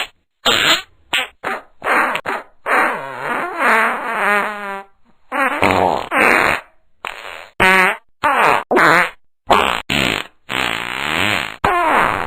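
A rapid string of about a dozen fart noises, one after another with short gaps. Some are brief pops. Others are drawn out with a wavering, sliding pitch, the longest lasting about two seconds, starting about three seconds in.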